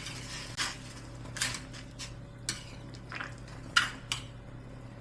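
Pots, dishes and metal utensils knocking and clinking in scattered single strikes, the sharpest nearly four seconds in, over a steady low hum.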